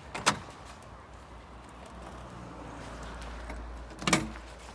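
Two heavy bangs against a car's body or door, about four seconds apart, each with a short ring after it. The car is being struck to test a newly armed car alarm, which does not go off.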